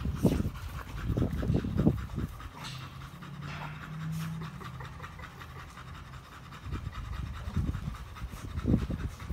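Two American bully dogs panting hard while they play-wrestle, breathy puffs coming quickly in the first two seconds and again near the end, with a quieter stretch in between.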